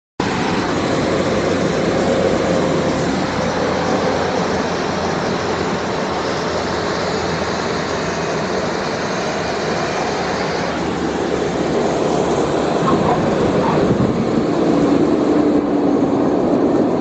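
Steady engine and rushing air noise of a small plane, heard from inside its cabin on final approach and landing. A low engine note comes up near the end as the plane rolls along the runway.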